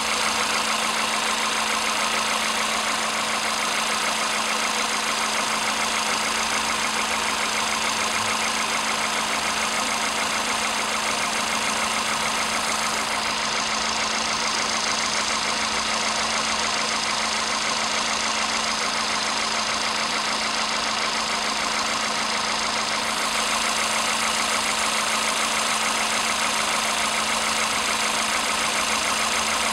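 Warm VW Polo sedan CFNA 1.6-litre four-cylinder petrol engine idling steadily, with a fast, even ticking over the running. The owner suspects knocks, while the dealer found it normal.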